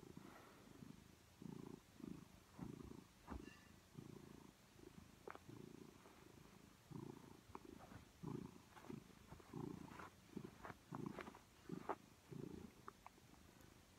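Domestic cat purring close by: a low rumble that swells and fades with each breath, about one or two pulses a second, with a few faint clicks over it.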